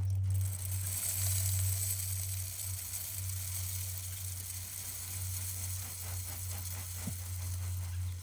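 Shelled sunflower seeds (sunflower chips) being poured into a mesh bird feeder, a steady dry hiss-like trickle over a steady low rumble.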